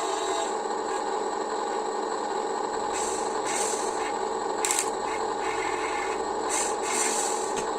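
Small electric motors of a Huina radio-controlled excavator and dump truck whining steadily, with several short scraping bursts as sand is dug and shifted.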